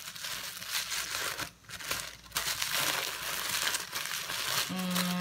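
Gift wrapping crinkling and rustling as it is pulled open by hand, with a brief pause about a second and a half in.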